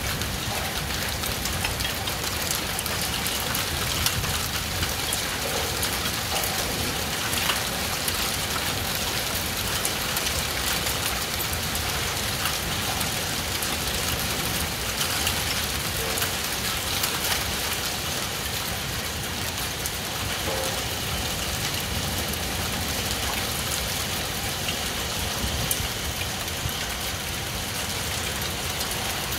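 Heavy rain falling steadily in a storm, with many scattered sharp drop impacts on surfaces.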